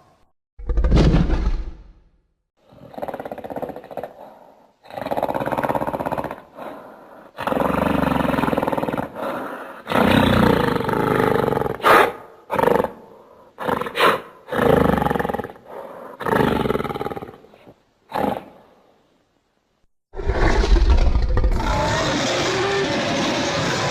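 Giant gorilla monster roar sound effects, made from film creature roars: a string of separate roars and growls of varying length with short gaps, then one long, unbroken roar starting about 20 seconds in.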